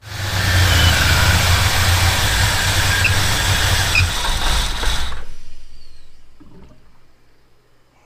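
Freshly rebuilt small-block Chevy 350 V8 running loudly, then dying away about five seconds in and fading out over the next two seconds.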